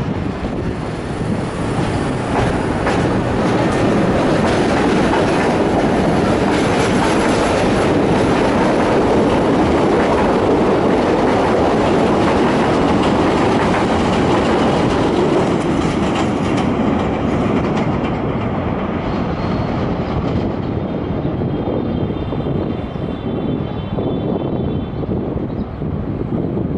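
CTA 2600-series rapid-transit train pulling out of an elevated station and passing close by, its wheels clattering over the rail joints, loudest as the cars go past and then fading as it moves away. A faint, high wheel squeal comes in near the end.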